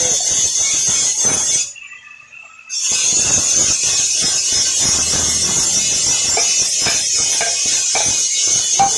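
Blacksmith's steel tools clanking and knocking against red-hot iron and an anvil as the bar is levered around a bending jig, with hammer strikes in the last seconds, over a steady high workshop hiss. The sound drops out briefly about two seconds in.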